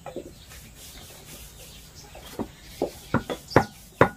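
A lump of jaggery being pounded with a metal rod on a wooden board: a run of about six sharp knocks in the last two seconds, a few tenths of a second apart.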